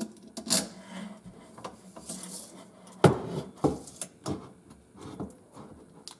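A metal ball-bearing drawer slide track being handled and pressed into place against a wooden cabinet frame: a handful of sharp knocks and clicks with faint scraping between them.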